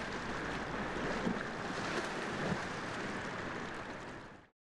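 Water splashing and churning from a swimmer's butterfly stroke: a steady wash of noise with a few slightly louder splashes, cutting off abruptly near the end.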